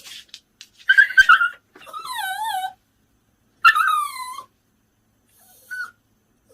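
Bichon Frise dog whimpering and whining in a few separate calls: a short harsh yelp about a second in, then wavering, quivering whines, and a faint brief one near the end.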